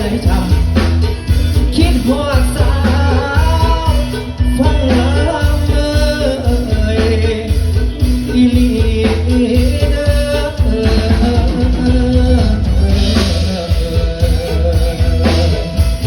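Live band playing a Thai luk thung song: loud bass and drums under a gliding melodic lead.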